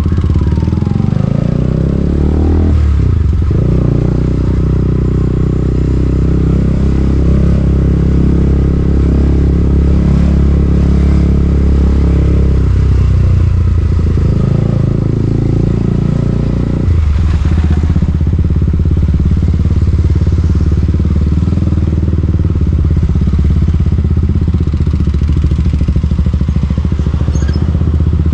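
KTM Duke 200's single-cylinder engine on a ride, revving up and down through the gears, then holding a steady note. About 17 seconds in the engine speed drops suddenly, and it runs steadily at low revs after that.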